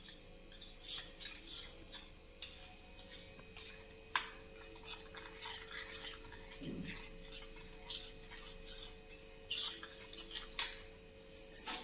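Small steel spoon stirring custard powder paste in a small stainless-steel bowl, with irregular light clinks and scrapes of the spoon against the bowl.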